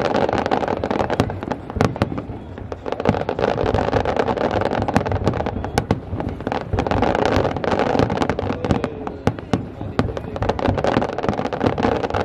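Fireworks display going off: many sharp cracks and pops from bursting aerial shells in quick succession, over a steady background noise.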